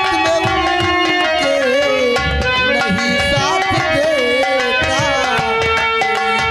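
Instrumental music of a nautanki folk play: hand drums played briskly under held notes and a wavering melodic line.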